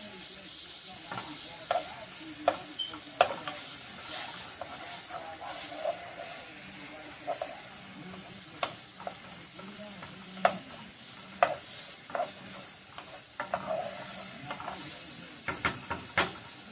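Sliced onions and garlic sizzling steadily in a nonstick frying pan, stirred with a wooden spoon that knocks against the pan at irregular moments.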